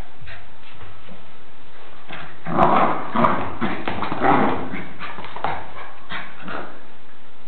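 Jack Russell terrier making noises in a dense run of bursts as it shakes and tugs a plush toy, starting about two seconds in, with two more bursts near the end.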